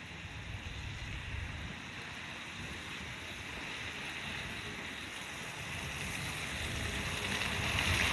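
Steady rushing outdoor noise, growing a little louder toward the end.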